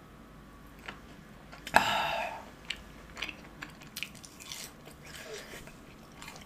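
A short, loud vocal sound about two seconds in, then biting into and chewing a crispy fried cheese ball coated in spicy volcano sauce, with small crunches and wet mouth sounds.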